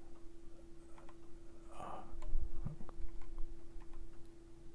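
Quiet pause in a voice recording: low room tone with a steady faint hum, a few soft clicks and a short soft noise about two seconds in.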